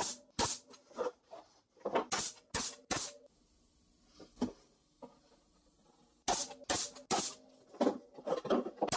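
Brad nailer firing brads through plywood: a quick run of sharp shots over the first three seconds, a pause, then another run of shots from about six seconds in.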